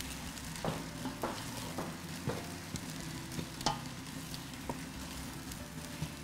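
Wooden spoon stirring a halva mixture of flour, oil, almonds and dried fruit in a hot pan: a steady faint sizzle with a few scattered scrapes and taps of the spoon.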